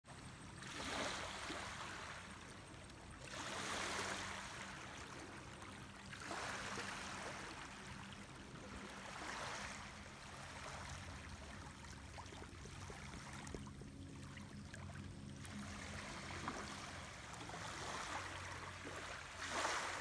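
Small lake waves washing against the shore, the water sound swelling and fading every few seconds, over a faint, steady low hum.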